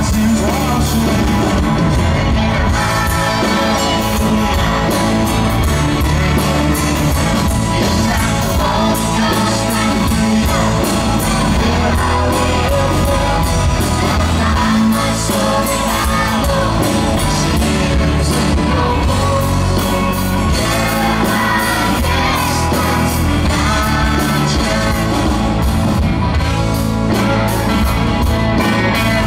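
Live rock band playing amplified through a PA, with electric guitars and bass, and singing by a lead vocalist joined by a group of children's voices.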